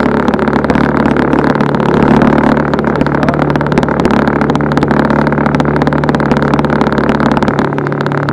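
Outboard motor on a small aluminum jon boat running steadily at trolling speed, a continuous low drone.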